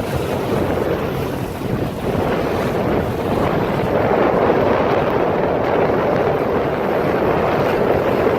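Strong wind buffeting the microphone over rushing, splashing water, in a breeze of about 20 knots; it grows a little louder about two seconds in.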